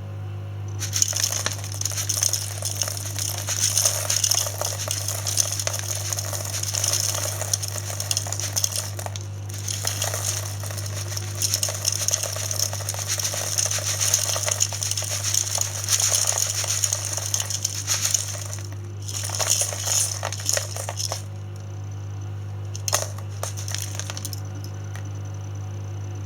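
Cat litter granules rattling and sifting through a 3D-printed plastic litter scoop as it is dug in and shaken. Long stretches of rattling with brief breaks give way to a few short shakes near the end, over a steady low hum.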